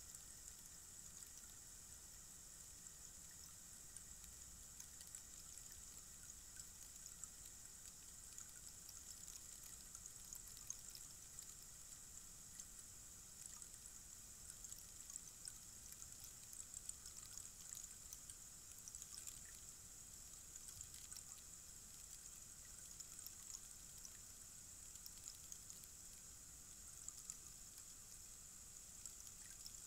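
Tall rainstick standing upright, its fill trickling down inside as a faint, steady hiss of fine patter.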